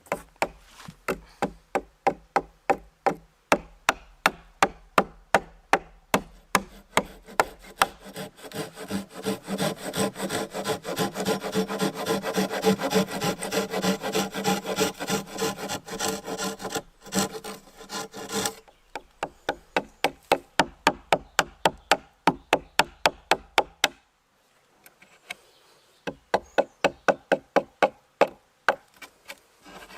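A hand tool working wood in rapid, regular scraping strokes, about three a second, with a couple of short breaks.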